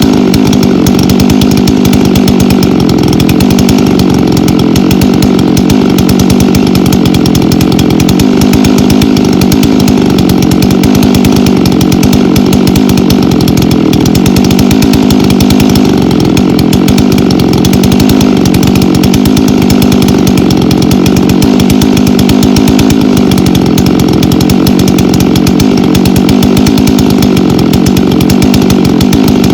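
Chainsaw running steadily, bucking logs into firewood rounds; its pitch dips and recovers every few seconds as it works through the wood.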